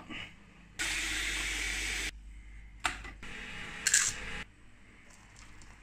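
Dry savoury meal-replacement powder with bits of beans in it, scooped and tipped into a plastic cup: a steady rattling pour of about a second, a short knock, then a second, shorter pour with a sharp rattle about four seconds in.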